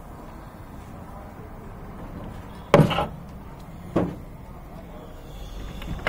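Two short, loud knocks about a second apart, over steady background noise.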